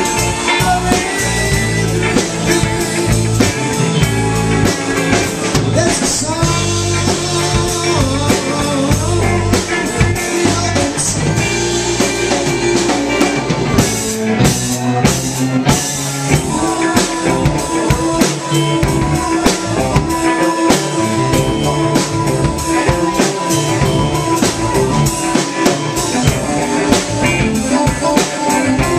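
Live blues-rock band playing: electric guitar, bass guitar, drum kit and keyboard, with long held notes through the second half.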